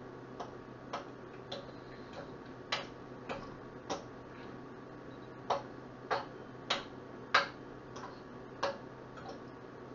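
Metal kitchen utensil knocking against a cooking pot in an even rhythm, about three clicks every two seconds, as raw ground meat is broken up into small pieces.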